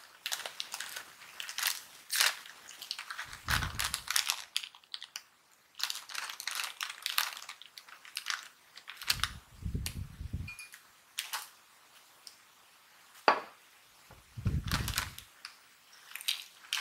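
A crinkly snack-chip bag being torn open and handled, crackling and rustling in quick irregular bursts, with a few low thuds and one sharp click about thirteen seconds in.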